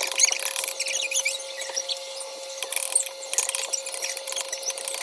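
Ground chicken sizzling in a hot pan as it browns: a dense, steady crackle of small pops and spits, with a faint steady hum underneath.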